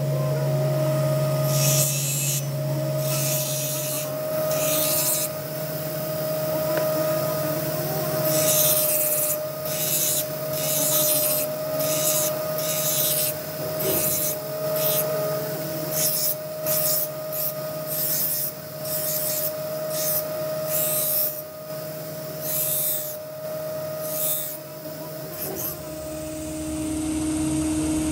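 A steel knife blade being ground on a spinning abrasive grinding wheel, in repeated short scraping passes about once a second over the machine's steady hum. The grinding stops near the end.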